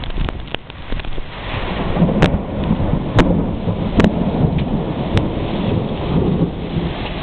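Heavy rain and strong wind gusts of a summer thunderstorm, with a low rumble of thunder building about two seconds in and fading near the end. Several sharp ticks cut through the downpour.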